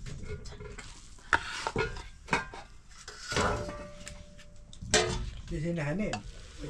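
A metal utensil stirring and scraping in a cooking pot, with several sharp clinks against the pot that ring briefly.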